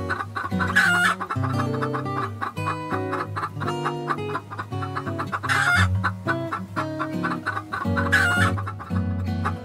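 Chickens clucking, with a few louder calls standing out about a second in and again twice near the end, over background music with a moving bass line.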